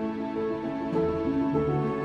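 Background music: soft, slow, melodic instrumental with sustained notes.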